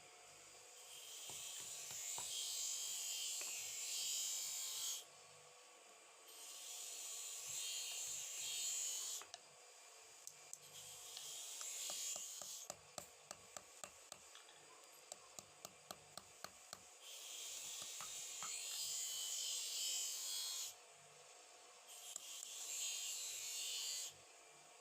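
Rust being scraped off a steel knife with an abrasive: rasping passes a few seconds long with short pauses between them. About halfway through, the rasping stops and gives way to a run of light ticks, two or three a second.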